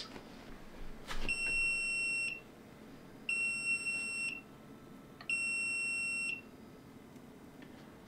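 SUNLU FC01 filament connector's electronic beeper sounding three long, evenly spaced beeps, each about a second. The beeps signal that the heater has reached its set temperature of 185 °C for PLA.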